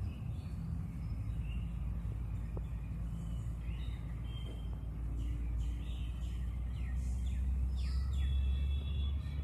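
Outdoor ambience: a steady low rumble, a little louder near the end, with small birds chirping now and then.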